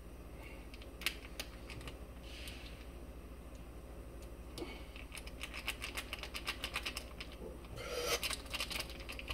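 Small plastic noodle seasoning sachets being torn and squeezed by hand. Scattered crinkly clicks give way to a quick run of clicks about halfway through, then a louder rustle near the end.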